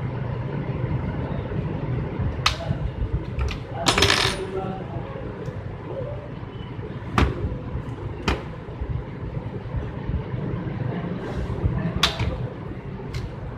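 Plastic case of an Asus mini laptop being pried open and handled: a scattering of sharp clicks and snaps, with a longer scraping rattle about four seconds in, over a steady low hum.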